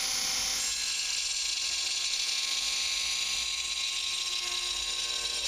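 Bosch GWX 18V-15 SC cordless mini angle grinder with a multi-material diamond disc, cutting through a marble tile. The motor runs steadily under load, with a high, gritty grinding whine as the disc works through the stone.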